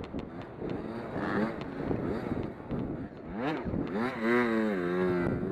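Race car engines running on the oval, their pitch rising and falling as cars go by, loudest from about three and a half seconds in.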